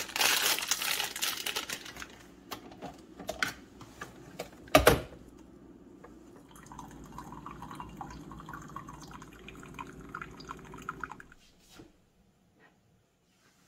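A Keurig single-serve coffee maker being handled, with rustling, clicks and one loud clack about five seconds in. Then it brews: a steady pump hum with coffee running into a ceramic mug, stopping about eleven seconds in.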